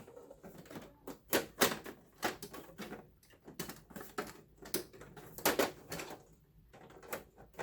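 Desktop computer case side cover being worked onto the chassis: irregular sharp clicks and knocks as its prongs are wiggled against the frame without seating flush.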